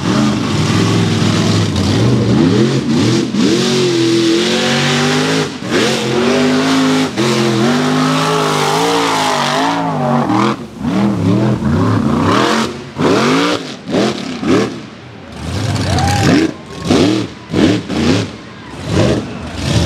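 Supercharged 540-cubic-inch big-block V8 of a mega mud truck revving hard under load, its pitch swinging up and down for about half the time. It then breaks into a string of short bursts of throttle, each rising and falling, with gaps between them.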